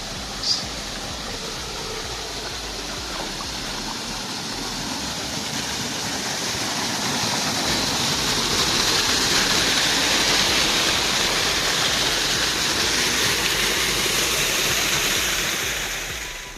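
Rushing water of a mountain stream, a steady hiss that grows louder partway through and drops away just before the end. A short high chirp comes about half a second in.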